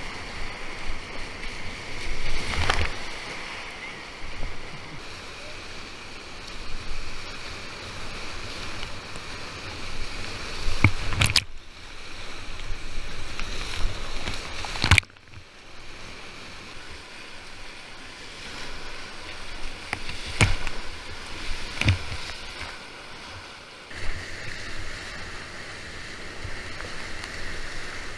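Whitewater rapids rushing and churning around a kayak, heard close up, with sharp splashes and knocks as waves and paddle strokes hit the boat. About halfway a loud crack is followed by a quieter rush.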